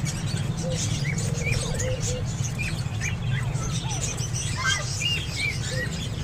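Baby ring-necked parakeet chicks chirping: many short, rising chirps, several a second, over a steady low hum.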